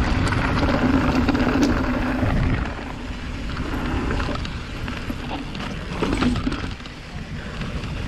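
Titanium hardtail mountain bike ridden over a wet gravel path and then across grass: tyres rolling and crunching, the bike rattling with occasional knocks, and wind on the microphone. Louder over the first couple of seconds on the gravel, then quieter on the grass.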